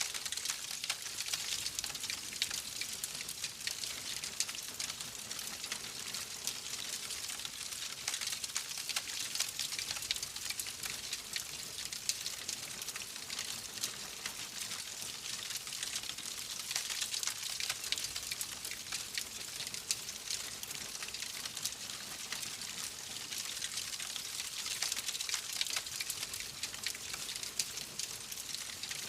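Wood fire crackling in a fireplace: a steady hiss dotted with many small sharp pops and crackles.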